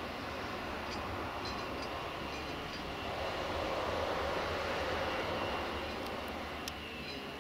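A distant diesel train running at the station: a steady low drone that swells in the middle and eases off near the end, with a few faint ticks and a single click.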